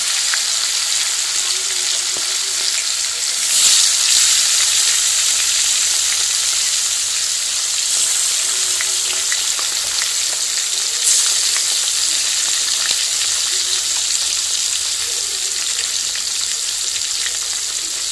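Pieces of katla fish coated in salt and turmeric sizzling steadily as they fry in hot oil in a karahi. The sizzling flares up a few times, about 3.5, 8 and 11 seconds in, as more pieces are dropped into the oil.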